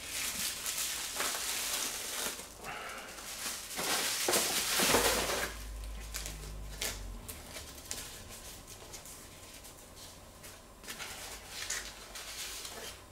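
Bubble wrap and plastic wrapping crinkling and rustling in the hands as a camera lens is unwrapped. The rustling is busiest over the first five seconds, then thins to softer, scattered rustles.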